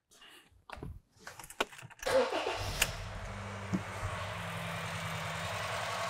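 A 2013 Honda Fit's 1.5-litre four-cylinder engine starts after a short crank about two seconds in, then idles steadily. It is running with a dead misfire on cylinder 3.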